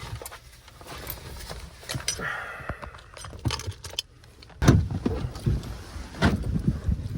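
A bunch of keys jangling amid handling clatter, with two heavier thumps about four and a half and six seconds in.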